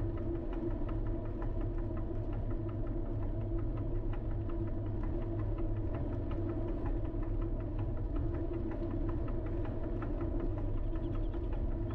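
Car driving slowly: a steady low engine and road hum, with a faint regular ticking about three times a second.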